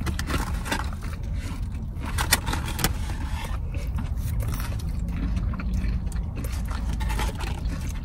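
Eating noises, with rustling and small clicks from handling food and wrappers, over a steady low rumble.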